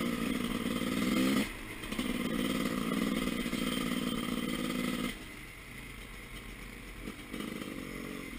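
Off-road motorcycle engine running under throttle. The throttle is shut briefly about a second and a half in and opened again. About five seconds in it falls to a lower, steady running, with a short blip of throttle near the end.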